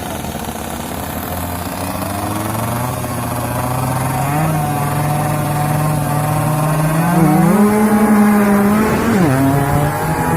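Two-stroke Yamaha F1ZR underbone motorcycle engines revving hard in a drag run, their pitch climbing in steps and growing louder, then dropping sharply about nine seconds in.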